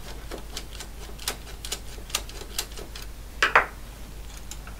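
Light metallic clicks and ticks of a screwdriver backing out a small screw from the metal chassis of a vintage tape drive mechanism. A louder double clack comes about three and a half seconds in.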